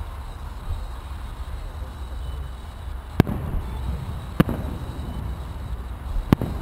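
Aerial fireworks shells bursting: three sharp bangs, the first about three seconds in, over a steady low rumble.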